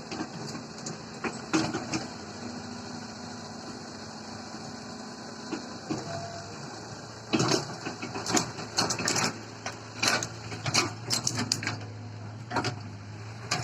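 Heavy diesel machinery running steadily, its engine note dropping lower about halfway through. From about seven seconds in comes a dense run of sharp knocks and clatters.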